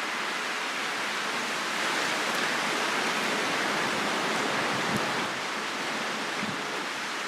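Wind rushing steadily outdoors, swelling in a gust about two seconds in and easing slightly after about five seconds.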